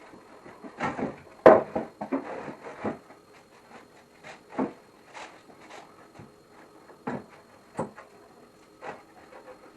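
Wooden boards being handled and set down: irregular knocks and clacks with some scraping, the loudest knock about a second and a half in and fewer, sparser knocks later.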